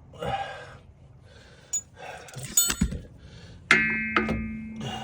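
Wrench and metal parts clinking while a brake hose is worked loose from a caliper, then a loud ringing metallic clank about three-quarters of the way in, followed by a second knock.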